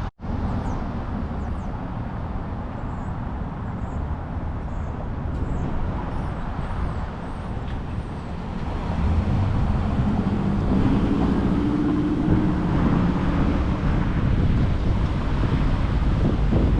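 Outdoor road traffic noise with a motor vehicle's engine, which gets louder about halfway through.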